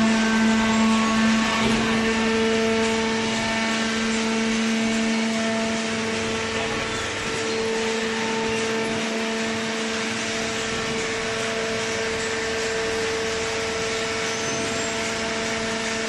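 Waste-paper (OCC cardboard) baler running: a steady machine hum with a strong low tone and a second tone above it, over a broad hiss.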